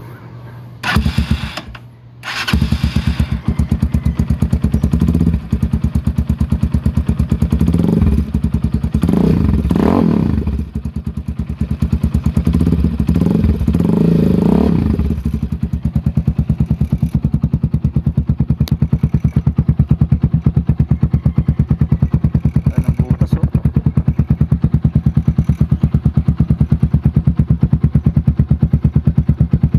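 Rusi Sigma 250 motorcycle engine breathing through an aftermarket LeoVince muffler with its silencer insert removed. It fires briefly about a second in, then starts and runs. It is revved a few times in the middle and then settles back to a steady, evenly pulsing idle.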